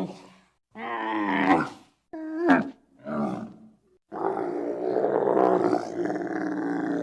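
Giraffe calling: a series of short pitched calls with silent gaps between them, one dropping sharply in pitch, then a longer call of about three seconds from about four seconds in.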